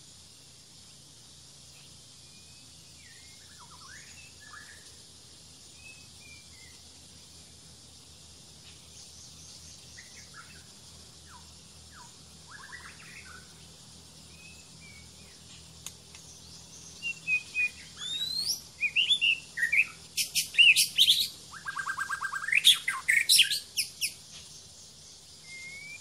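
White-rumped shama singing close by: faint scattered calls at first, then from about two-thirds through a loud run of rich, varied whistles, rising and falling sweeps and a fast trill. A steady high hiss of insects runs underneath.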